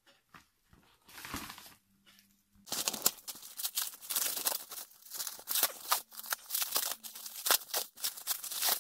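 Plastic cling-film wrapping and mailer bag crinkling and rustling as a wrapped parcel is handled and unwrapped by hand: a few soft rustles at first, then dense, crackly crinkling from about three seconds in.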